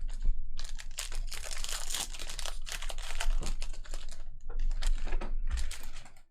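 Trading cards being handled and flipped through, a quick run of light clicks, with crinkling of plastic pack wrapping.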